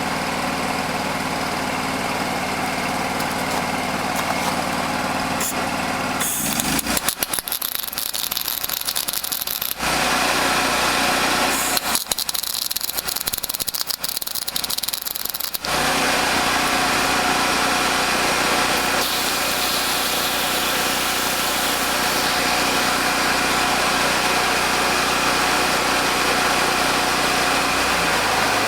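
Engine-driven welder running steadily, with two stretches of wire-feed arc welding crackle, each a few seconds long, about six and twelve seconds in, as a nut is welded onto a steel jack.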